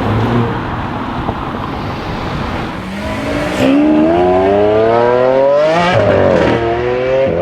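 Mercedes-AMG A45 S's turbocharged 2.0-litre four-cylinder with a Milltek OPF-delete straight-pipe exhaust, accelerating hard. A low rumble for the first few seconds rises into a loud climbing engine note, breaks briefly for a gear change about six seconds in, then climbs again.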